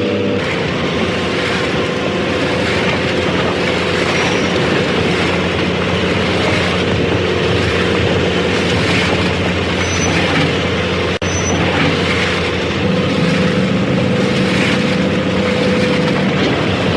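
Harvester running steadily under load: a constant engine drone with the clatter and rattle of its machinery, broken by a brief dropout about eleven seconds in.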